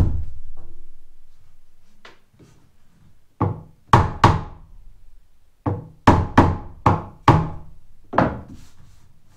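Sharp wooden knocks on pine car-siding floorboards as the boards are worked tight into place: a quiet first few seconds, then about nine short thunks in irregular pairs and runs, each dying away quickly.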